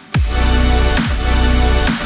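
Electronic outro music with a heavy, sustained bass and a falling bass sweep about once a second; it comes back in after a brief gap at the very start.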